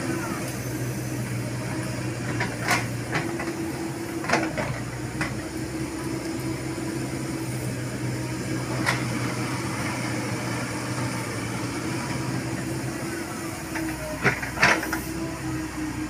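Komatsu PC70 excavator's diesel engine running steadily under digging load, with hydraulic hiss and a few sharp knocks from the bucket and arm at work, the loudest two close together near the end.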